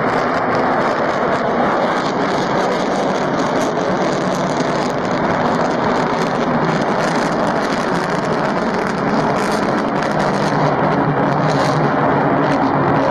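Rockwell B-1B Lancer's four afterburning General Electric F101 turbofans at full takeoff power: a loud, steady jet noise as the bomber rolls and lifts off.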